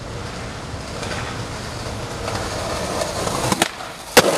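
Skateboard wheels rolling on concrete, growing steadily louder, then a sharp pop of the tail about three and a half seconds in and a loud slap of the board landing near the end.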